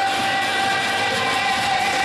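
Skating program music played over arena loudspeakers, a long held note sounding throughout.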